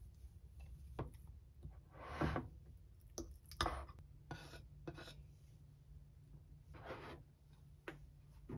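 Diced fruit being scraped off a wooden cutting board into a small ceramic bowl: a few short scrapes, with light clicks and taps of a spoon in between.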